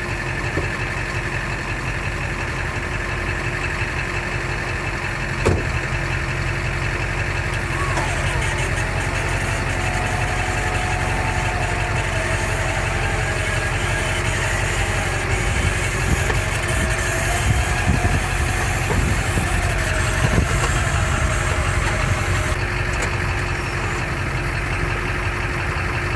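A vehicle engine idling steadily. From about eight seconds in until near the end, a wavering whine and a hiss join it.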